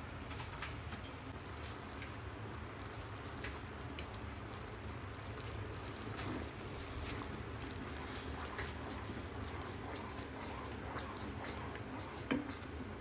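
Sauce simmering and bubbling in a nonstick pan, with many small pops, while a wooden spatula stirs through it. One sharper knock comes near the end.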